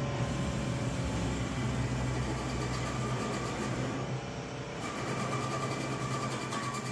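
BD 1516 CNC wood turning lathe running: its spindles turn wooden blanks while the cutters carve them, giving a steady mechanical hum with cutting noise. From about two-thirds of the way in, a steady whine and fast, even ticking come up.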